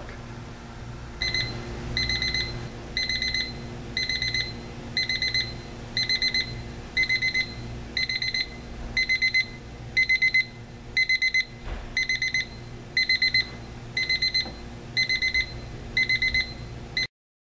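Seiko QHE085KLH quartz travel alarm clock's electronic beep alarm sounding: clusters of quick high-pitched pips, about once a second, over a low steady hum. The beeping stops abruptly near the end.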